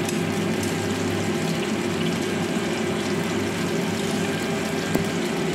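Chicken wings shallow-frying in oil in a nonstick wok, a steady sizzle over a constant low hum, with a single faint click near the end.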